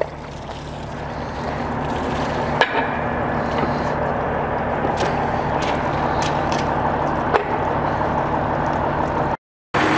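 Water gushing and splashing from the open end of a fixture pipe onto a concrete floor, over the steady hum of a circulating pump; the flow swells over the first couple of seconds, then holds steady. A few sharp knocks come from the pipe connection being handled, and the sound cuts out for a moment near the end.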